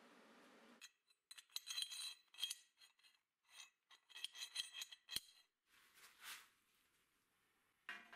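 Steel parts clinking and scraping as they are handled: a shaft and nut fittings in a square steel tube, with a run of sharp metallic clicks that ring briefly. Near the end, a louder clink as the tube is set down on a steel frame.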